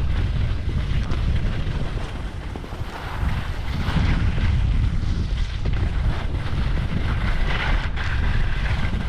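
Wind buffeting the microphone with a steady low rumble while skiing fast down a groomed run, with the hiss and scrape of skis on packed snow swelling in a couple of turns.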